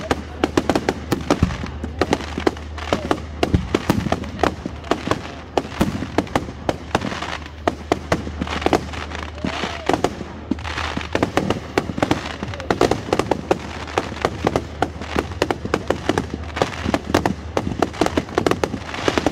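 Fireworks display: a dense, unbroken run of bangs from shells bursting overhead, mixed with rapid crackling.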